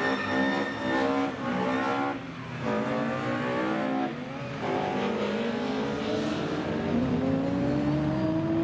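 Rally car engines running hard and changing gear. Engine pitch drops at shifts about two and four and a half seconds in, and near the end an engine climbs steadily in pitch as a car accelerates.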